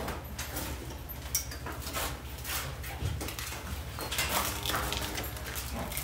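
Dairy cows moving about in the barn: scattered knocks and clatters of hooves on the concrete and slatted floor over a steady low hum, with a faint low moo about four seconds in.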